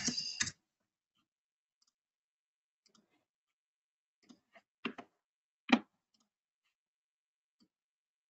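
Typing on a computer keyboard in the first half second, then a few separate mouse clicks about four to six seconds in, with a fainter click near the end.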